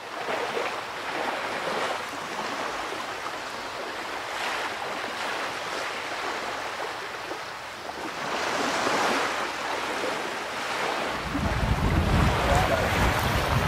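Sea water rushing and wind aboard a sailing yacht under way, the rush swelling in surges. From about eleven seconds in, heavy wind buffets the microphone.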